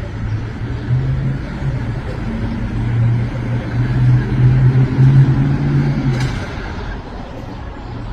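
A low engine hum that steps up and down in pitch, swelling for a few seconds and then dropping away about six seconds in.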